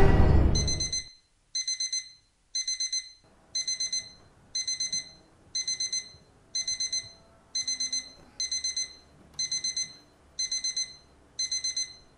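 A smartphone alarm beeping: short groups of quick, high beeps repeating about once a second, twelve times. It stops near the end as she picks up the phone.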